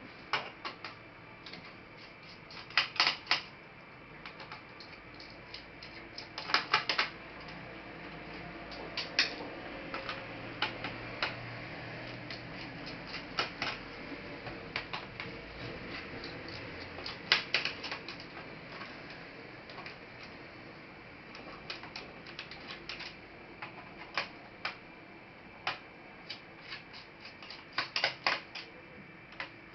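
Sharp clicks and taps of a laptop being taken apart by hand: plastic casing parts and small tools knocking and snapping. They come irregularly, often in quick clusters of three or four, with single clicks between.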